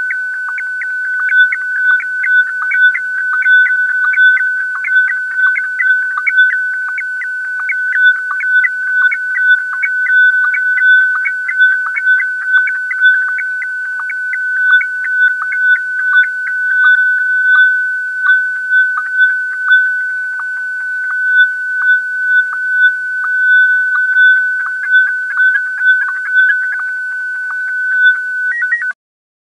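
Radio data signal coming through a receiver: a loud, steady whistle-like tone with rapid, irregular pulsing and faint sweeping whistles around it. It stops abruptly near the end.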